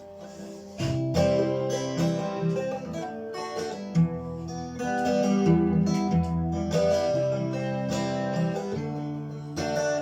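Acoustic guitar playing the instrumental introduction of a song, chords coming in about a second in after a faint hiss.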